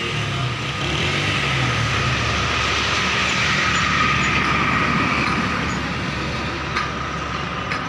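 Steady motor noise with a thin whine on top, swelling to its loudest about halfway and then easing off.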